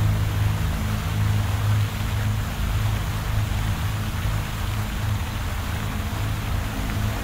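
A low drone that swells and ebbs about once a second, under a steady hiss.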